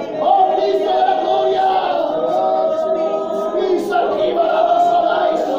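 A congregation singing together, many voices holding long notes of a slow worship chorus.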